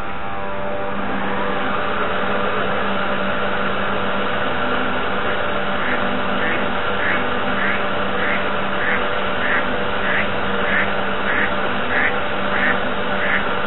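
A model paddle tug's drive running under way with a steady whine and hum over the wash of water around the hull. From about six seconds in, a regular pulse joins it, a little under two a second.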